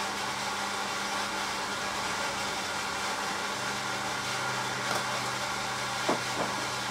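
Hoover AXI washing machine at the start of the main wash: a steady hiss of water rushing in, over a low steady hum, with a couple of short knocks or splashes near the end.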